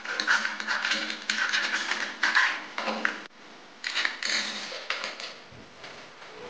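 Utility knife blade cutting and scraping around a thin aluminium soda can, a rapid run of scratchy clicks and crackles. It stops about three seconds in and starts again briefly a second later.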